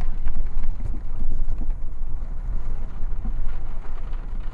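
Steady low rumble of a vehicle driving, with road and wind noise.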